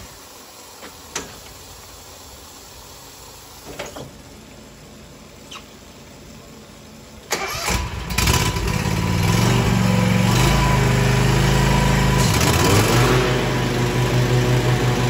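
Water hissing as it sprays from under a zero-turn mower's deck, fed by a garden hose through the deck-wash port, with a few light clicks. About halfway through, the mower's engine starts and then runs steadily, driving the blades to flush clippings out of the deck.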